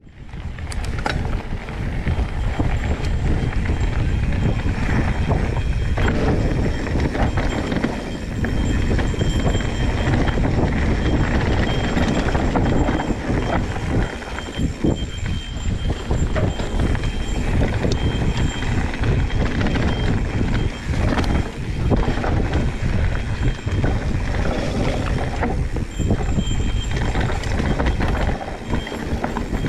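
Mountain bike being ridden along a dirt trail, heard from a bike-mounted action camera: a continuous rumble of tyres and wind noise with frequent short knocks and rattles from the bike.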